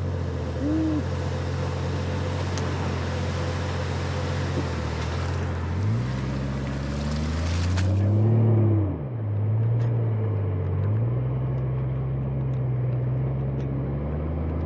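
A 4x4's engine running while driving through snow: it revs up with rising pitch about six seconds in and drops back abruptly near nine seconds, then runs steadily. An even rushing of tyre and road noise stops suddenly about eight seconds in.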